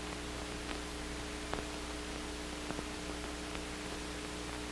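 Steady hiss and a low electrical hum with a few faint clicks: the background noise of an old film soundtrack between lines of narration.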